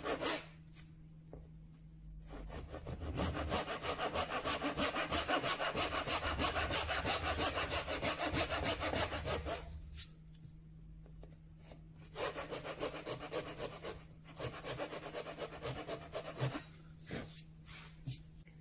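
Fine 20-teeth-per-inch rip saw cutting shallow kerfs into the edge of a wooden board with a gentle touch: a long run of quick, short strokes, a pause of about two seconds, then a second shorter run. A few light knocks near the end.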